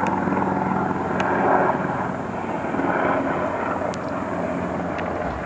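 A steady engine drone, with an even hum that holds its pitch.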